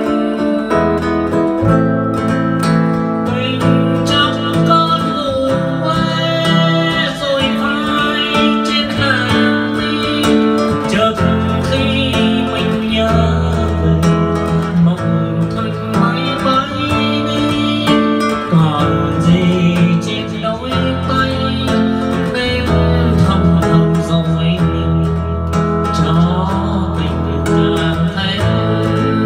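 Music: an acoustic guitar playing a slow ballad passage, with sustained low notes underneath.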